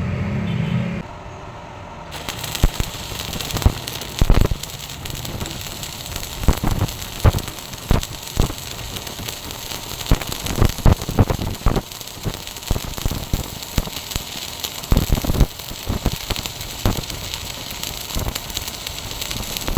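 Stick arc welding: the electrode's arc crackling and spitting steadily, with frequent sharp pops, starting about two seconds in.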